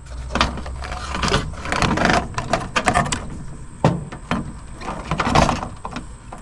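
Metal and plastic parts of a cassette deck being handled and pulled apart, a string of irregular knocks, clanks and rattles.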